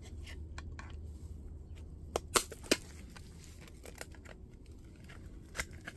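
Scattered clicks and clatter of small plastic and metal fax-machine parts being handled and sorted, three sharper knocks close together about two seconds in, over a low steady hum.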